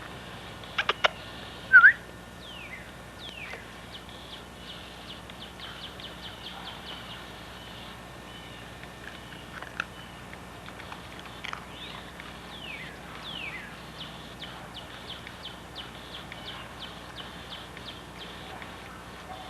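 Songbirds chirping and calling, with repeated descending whistled notes and quick runs of high ticking chirps. A couple of louder, sharper calls come about a second in and just before the two-second mark.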